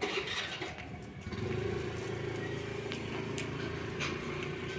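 A motor vehicle engine running steadily at an even pitch, setting in about a second in.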